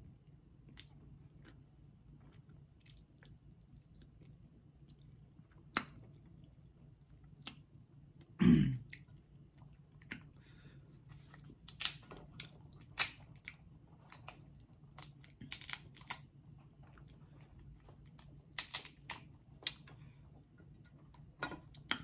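Close-up mouth sounds of someone eating crab legs: soft chewing and smacking broken by scattered sharp clicks, more of them in the second half, as the crab meat is pulled from the shell. One louder thud comes about eight and a half seconds in.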